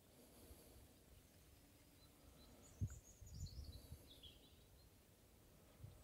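Quiet outdoor garden ambience with a short, faint bird song phrase, a falling run of chirps about three seconds in. A single sharp thump comes just before it, with low rumbles around it.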